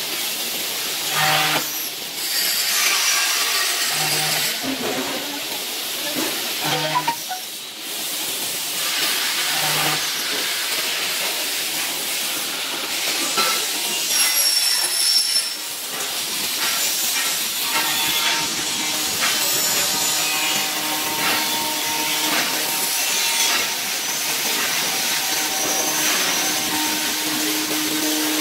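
Deli CNC MC-series four-axis profile machining center running a machining cycle: a steady hissing rush from the spindle at work. It is broken by a few short low hums in the first ten seconds, and a steady low hum sets in near the end.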